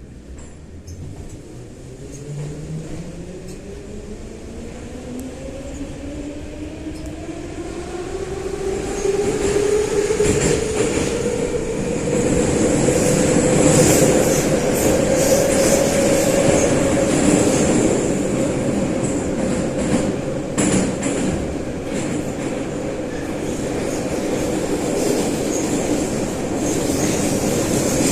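Soviet-type 81-717/714 metro train pulling away from a station: the traction motor whine rises steadily in pitch as it accelerates, then levels off about halfway through at running speed. Wheel and track rumble, hiss and a few clicks from rail joints grow louder with the speed.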